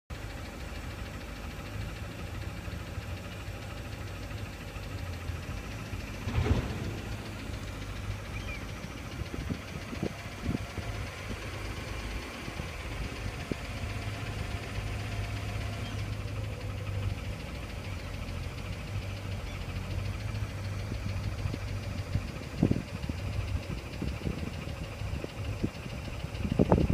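Mercedes-Benz ML engine idling cold with a knock that the owner hears while it warms up. A few louder short thumps stand out about six, ten and twenty-three seconds in, and again near the end.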